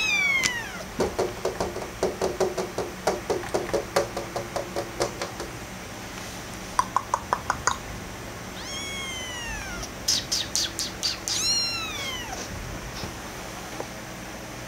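Scottish Fold kitten meowing: a high, falling meow at the start, then a few more falling meows about two thirds of the way in. In between come a run of soft quick taps, about five a second, and a short burst of sharp clicks.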